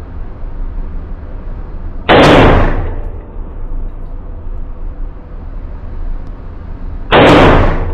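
Two loud gunshots from an AR pistol, about five seconds apart, each cut off sharply and then ringing briefly in an indoor range. A steady low hum lies underneath.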